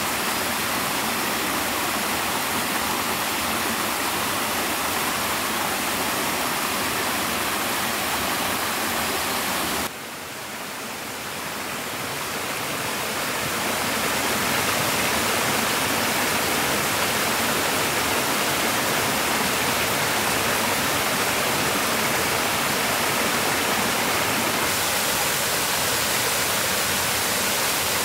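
Steady rushing water. The sound drops suddenly about ten seconds in and swells back up over the next few seconds.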